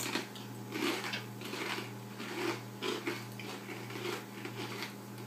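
Rye chips crunching as they are chewed, in irregular short crisp crunches about once a second, over a steady low hum.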